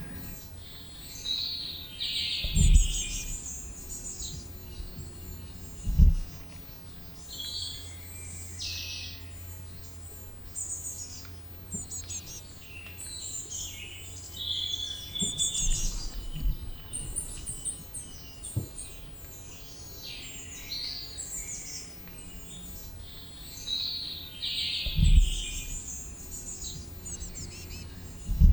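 Forest ambience of many small birds chirping and calling over a steady low rumble, broken by a few short low thuds, the loudest about 3 and 6 seconds in, again near the end.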